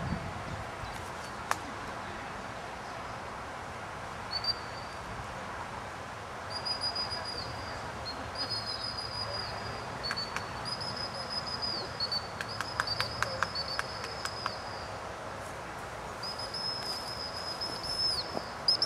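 Gundog whistle blown in a series of held notes, each about a second long and dipping slightly in pitch at its end: a recall bringing the Labrador retriever back with the dummy. A few light clicks a little past the middle.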